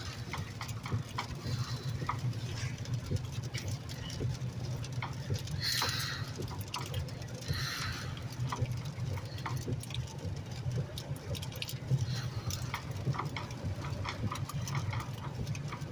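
Inside a moving car on a wet road: a steady low rumble of engine and tyre noise, with scattered light ticks and two brief hissing swishes about six and seven and a half seconds in.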